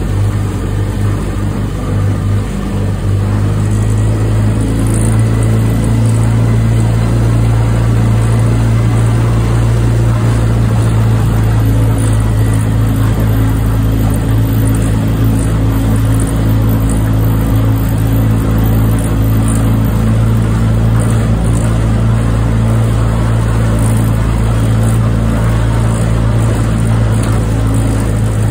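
Outboard motor of a launch running steadily at an even speed, a constant low drone.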